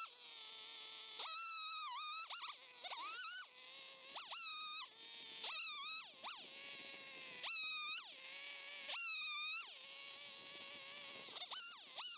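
Chainsaw revving and cutting, its pitch jumping up sharply at each squeeze of the throttle and sagging back down, over and over.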